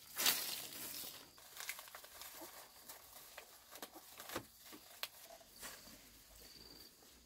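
Long-handled broom bristles swishing and scraping across a bare dirt yard in irregular strokes, the first stroke the loudest.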